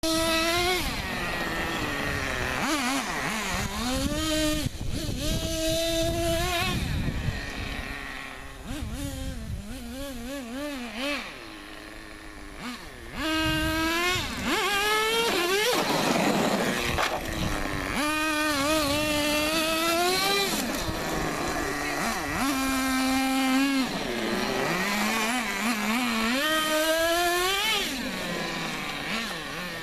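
Small two-stroke engine of a radio-controlled combustion car, revving up and down repeatedly in quick rising and falling glides as the car is driven. It is quieter for a few seconds past the middle, then loud again.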